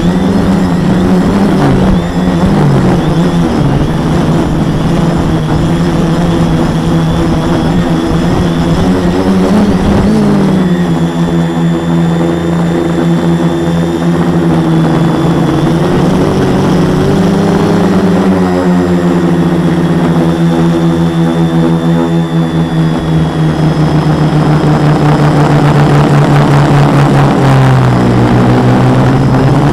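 Four MultiStar 2212 920kv brushless motors spinning 10x4.5 propellers on a 450-size quadcopter, heard from a camera mounted on its frame: a loud steady buzzing drone whose pitch shifts up and down with the throttle, dropping lower near the end.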